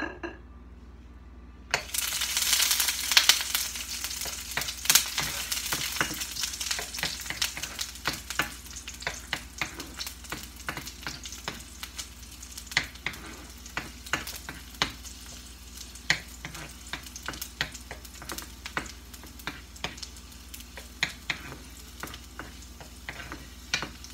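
Chopped garlic hits hot cooking oil in a frying pan about two seconds in and sizzles loudly, then goes on sizzling more softly. A utensil stirs it, clicking and scraping against the pan throughout.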